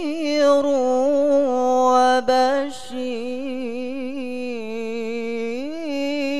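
A teenage boy chanting the Qur'an in tilawah (melodic recitation), drawing out the word "nadhir" into long, wavering, ornamented held notes through a microphone. There is a short breath a little under three seconds in, and then the melody resumes on a lower line.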